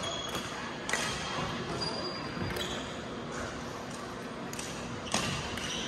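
Badminton rackets striking a shuttlecock: several sharp smacks spaced a second or two apart, the loudest about five seconds in, with short high squeaks of court shoes on the floor.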